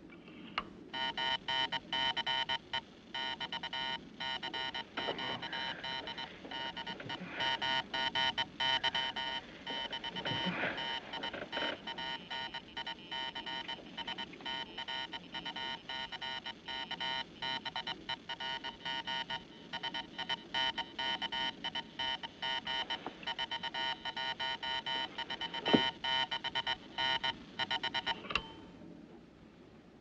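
Morse code sent on a ship's wireless telegraph: a buzzing tone keyed rapidly on and off in short and long pulses, dots and dashes, stopping about a second and a half before the end. There is one sharp knock late on.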